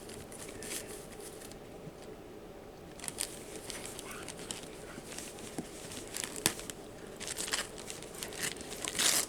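A dog tearing and crumpling the wrapping paper on a taped gift box: irregular crinkling and ripping, sparse at first and busier from a few seconds in, loudest near the end.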